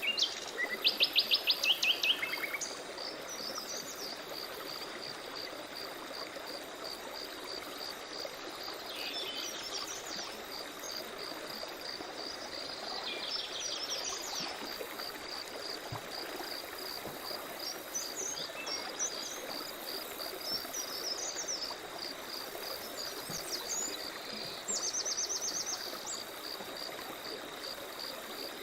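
Forest ambience: songbirds calling in short bursts of rapid repeated notes, the loudest about a second in and another near the end, over a steady pulsing insect chirp and the rush of a stream.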